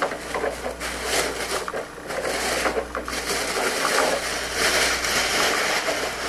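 Clear plastic bag crinkling and rustling as hands handle it and pull it off a radio-controlled helicopter canopy, loudest about two-thirds of the way through.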